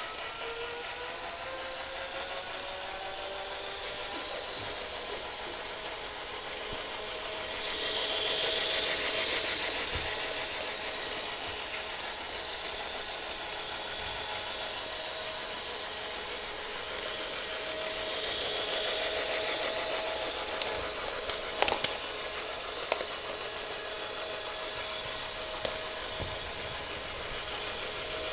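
Toy train's small electric motor whining and rattling as it runs along its track, its pitch rising over the first few seconds as it speeds up. It grows louder twice as it comes near, and a few sharp clicks sound about two-thirds of the way in.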